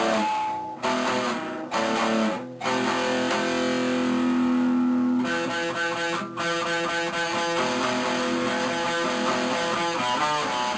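Guitar music: four chords struck about a second apart, then steady playing.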